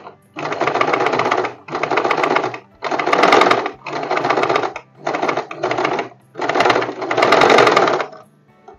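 An Usha Janome electric sewing machine stitches a fall onto a saree edge in about seven short runs of roughly a second each, with brief pauses between them. It stops about eight seconds in.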